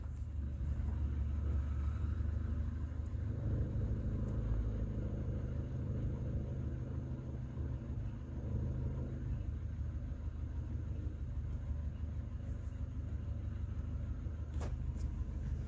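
Vehicle engine running steadily at low revs, a low rumble, with one faint click near the end.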